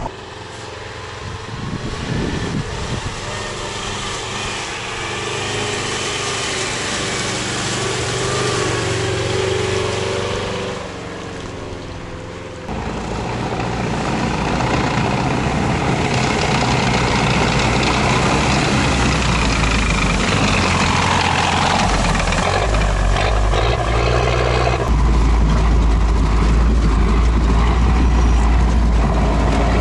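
Tracked vehicle's engine running as it drives along a muddy forest track. The sound changes abruptly about halfway through and again a few seconds before the end, where the low rumble is heaviest and loudest.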